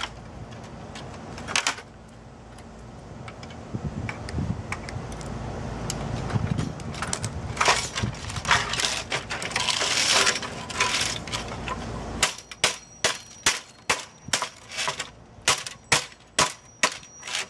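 HP printer being pulled apart by hand: scattered plastic snaps, rattles and clatter of housing and metal parts. About three-quarters of the way in, the low background noise drops away and a run of sharp, regular clicks follows, about three a second.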